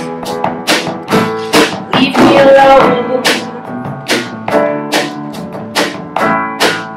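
Live band playing an instrumental passage of a song: drum kit keeping a steady beat with cymbal hits about twice a second, under electric bass and keyboard.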